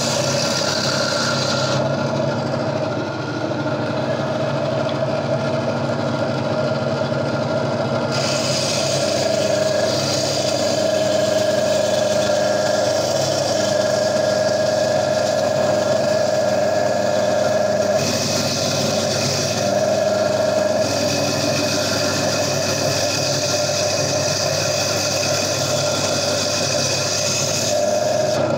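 Gryphon diamond bandsaw running steadily while its blade cuts through the stony skeleton of a Lobophyllia coral: a constant motor hum with a high grinding hiss from the cut. The hiss thins out between about two and eight seconds in, then comes back.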